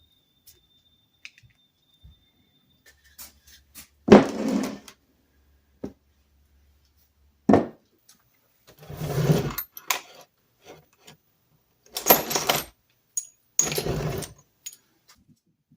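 Hand tools working a rusted metal tool part: a handful of short scraping and clanking bursts with small clicks between them.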